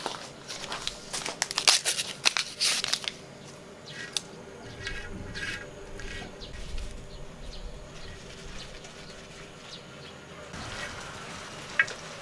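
Wooden chopsticks clicking and scraping against a cast-iron pot-lid griddle while picking up bits of kimchi pancake. There is a quick run of sharp clicks in the first few seconds, then lighter, scattered taps.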